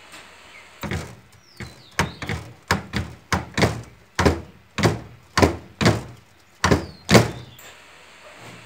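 A series of about a dozen sharp thuds and knocks at an uneven pace, like something striking a door or board repeatedly, stopping about seven seconds in.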